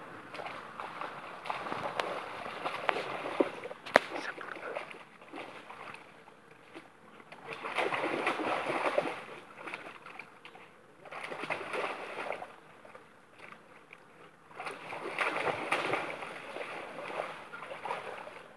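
A dog wading and splashing through a shallow stream, the water splashing in several bursts of a second or two, with two sharp clicks about two and four seconds in.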